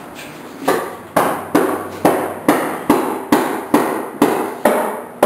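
Repeated hammer blows, about two a second, starting just under a second in, each with a short fading ring. A side of the pool table is being knocked up while it is levelled.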